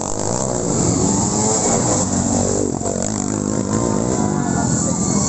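Motocross dirt bike engines revving as the bikes ride the dirt track. Several engines overlap, their pitch rising and falling as the riders work the throttle and pass.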